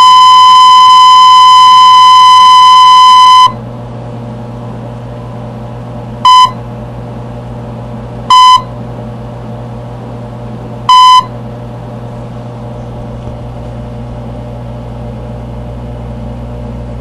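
Cue tones from the Singer Caramate II SP's cassette played aloud: one long steady high beep that ends about three and a half seconds in, then three short beeps of the same pitch a couple of seconds apart. These are the slide-switch tones that tell the projector to advance a slide. A steady low hum runs underneath.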